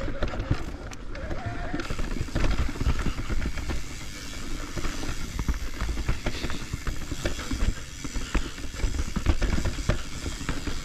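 Commencal full-suspension mountain bike riding over a dirt forest trail: tyres rolling over dirt and roots with a steady low rumble, and a dense, irregular clatter of clicks and knocks from the chain and bike as it bounces along.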